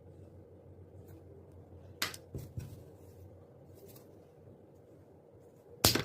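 Handling noise while unboxing a pair of shower slides: a sharp click about two seconds in, a couple of soft knocks just after, faint rustling, and a louder sharp knock near the end.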